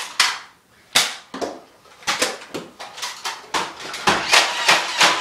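Irregular sharp clicks and knocks of toy foam-dart blasters being handled, primed and fired in a Nerf fight, with scuffling. One knock comes about a second in, then from about two seconds in they come thick and fast, several a second.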